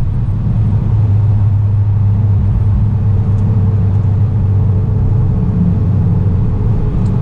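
Cabin noise of a 360 bhp VW Golf R Mk6 cruising: a steady, loud low drone from its turbocharged four-cylinder engine, with road and tyre rumble underneath.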